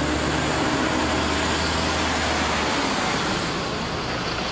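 Steady motor-vehicle engine and road noise, with a low hum that fades out a little past halfway.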